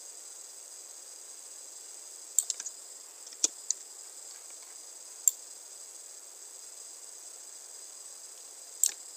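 Scattered clicks of a computer mouse and keyboard: a quick cluster a couple of seconds in, a few single clicks after it, and another near the end. Under them is a steady high hiss.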